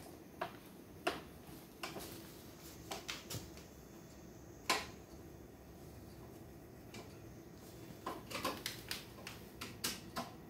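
Scattered clicks and light knocks of a hand screwdriver turning screws into a flat-screen TV's stand legs. There is one sharper knock about halfway through and a quick run of clicks near the end.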